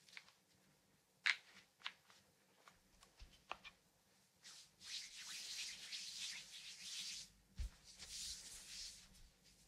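Hands rubbing over a bare foot in a reflexology massage, two long stretches of soft, high-pitched rubbing, picked up close by binaural microphones. A few light clicks and taps come before the rubbing starts.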